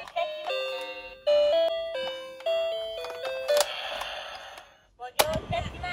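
Toy bus's built-in electronic sound effects set off by its roof buttons: a chiming melody of beeping notes with button clicks, then a short hiss about three and a half seconds in, and another click about five seconds in.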